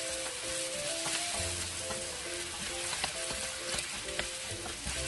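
Littleneck clams sizzling in a pan with sautéed garlic, onion and tomato, stirred with a utensil that gives a few light clicks against the pan. Soft background music plays underneath.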